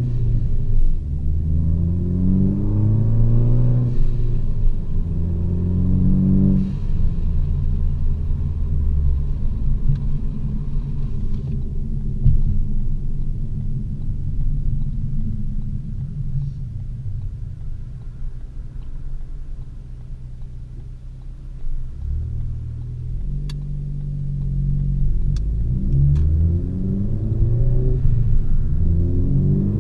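Exhaust of a 2014 Ford Focus ST with the muffler and resonator deleted, its 2.0 L turbocharged four-cylinder pulling hard through several gears, the pitch rising on each pull and dropping at each shift. In the middle it settles into a steadier, lower drone, then pulls up through the gears again near the end.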